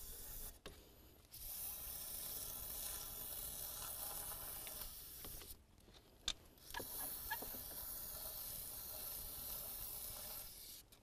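An aerosol can of foaming throttle-body cleaner spraying onto a carbon-fouled throttle valve in two long sprays of about four seconds each, with a short pause and a click or two between them.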